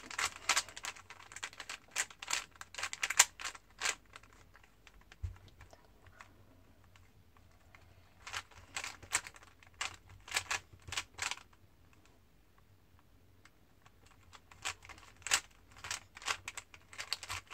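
Plastic 3x3 Rubik's cube being turned by hand: quick runs of clicking as the layers rotate, in three bursts with short pauses between.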